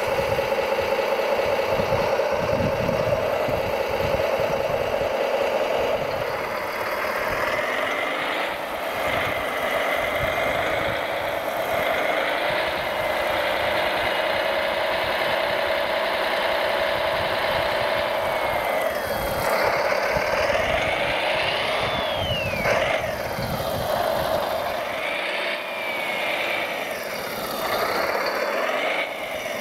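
Radio-controlled scale construction machines at work: a steady motor drone, with motors whining up and down in pitch several times in the second half.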